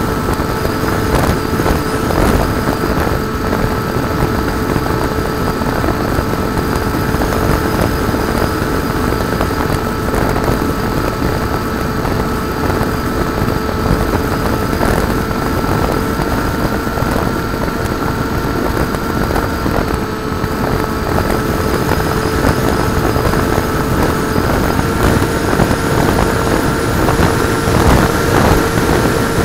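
Electric motor and pusher propeller of a Bixler 2 foam RC plane in cruise, heard from its onboard camera: a steady whine at constant throttle over heavy wind rush on the microphone.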